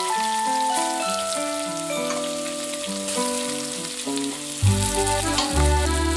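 Chicken curry sizzling and frying in a pan under a background music track. A heavy bass beat comes into the music about four and a half seconds in.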